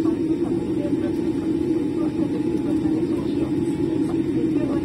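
Steady low rumble inside the cabin of a Boeing 787-8 taxiing after landing, from its engines and rolling wheels.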